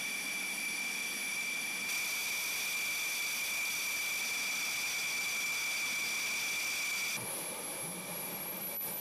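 Steady high-pitched whine of a jet turbine engine running, with no deep rumble under it. About seven seconds in the whine drops away to a fainter hiss, and a thin high tone rises near the end.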